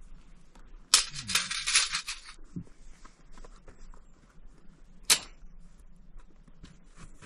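Handling noises close to the microphone: about a second of loud crinkling rustle, a dull knock, then a single sharp click a few seconds later, with faint ticks in between.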